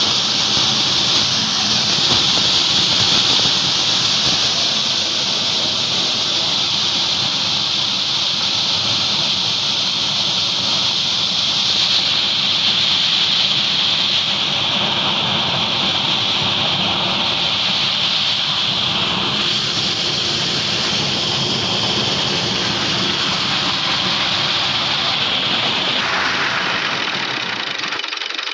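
Grain threshing machine running steadily, with threshed grain pouring from its outlet; the noise gets a little quieter near the end.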